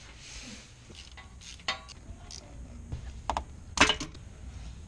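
Metal hand tools clinking and clicking against each other and the engine's metal parts during starter motor installation, with a few sharp knocks.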